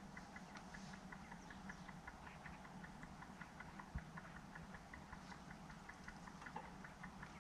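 Faint outdoor quiet: a steady fast ticking, about six a second, over a low hum, with one soft thump about four seconds in.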